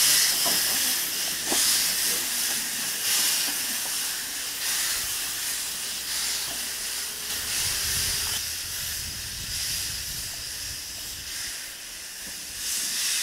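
Quarry Hunslet narrow-gauge saddle-tank steam locomotive moving slowly with its cylinder drain cocks open, steam hissing out and swelling in pulses about every second and a half. The hiss fades and then grows louder again near the end.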